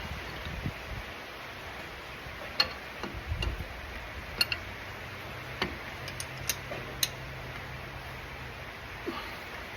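Scattered sharp clicks and clinks of hand tools and metal parts, about six over several seconds, typical of work on a diff pinion flange, over a faint low hum.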